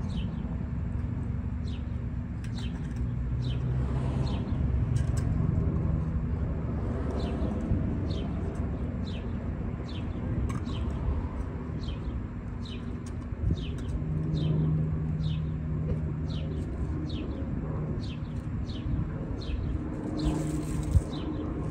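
Small birds chirping over and over: short, high, falling chirps about once or twice a second, over a low steady hum.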